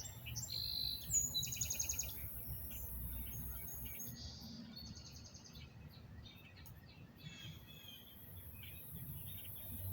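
Songbirds chirping and calling, with a quick trill of repeated notes about a second in, over a low steady background rumble.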